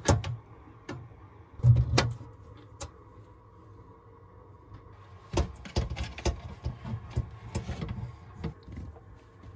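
Tape measure and marker handled against an aluminium diamond-plate wall: sharp clicks and clacks of the metal blade and case, a loud knock about two seconds in, then a quick run of clicks between about five and eight seconds, over a faint steady hum.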